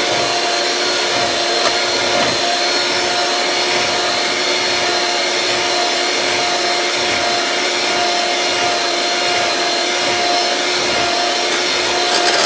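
Electric mixer running on high speed, a steady motor whine, whipping heavy cream in a bowl.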